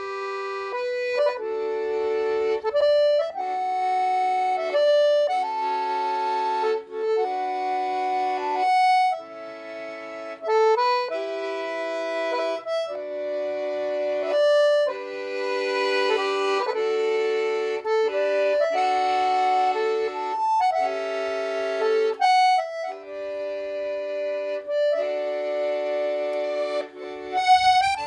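Instrumental background music: a melody played over held chords, with no drums.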